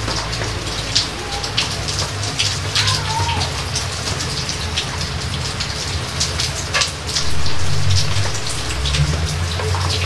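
Steady rain falling, with many separate heavy drops pattering through a constant hiss, and a louder low swell about seven seconds in.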